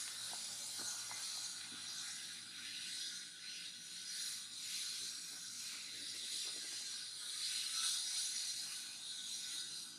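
Steady, high-pitched drone of an insect chorus, swelling and fading, loudest about eight seconds in.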